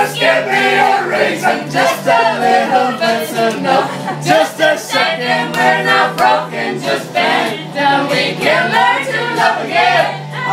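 A group of women and men singing a pop song together in unison, loud and continuous.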